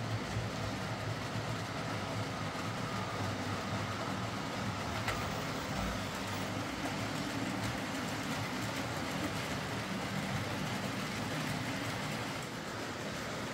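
OO gauge model trains running on a layout: a steady motor hum and wheel rumble on the track. There is a single click about five seconds in.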